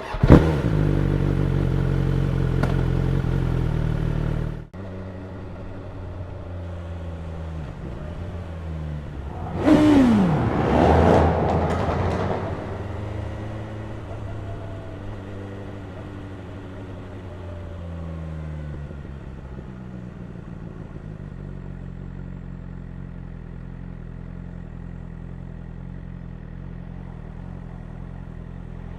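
BMW S1000R's inline-four engine running steadily, louder for the first few seconds and then dropping abruptly to a lower, idle-like level. About ten seconds in there is a brief louder burst whose pitch falls sharply, after which the engine runs steadily again.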